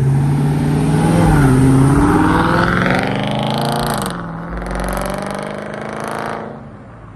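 A car accelerating hard away: the engine note climbs in pitch, drops sharply at a gear change about four seconds in, then holds and fades as the car pulls away.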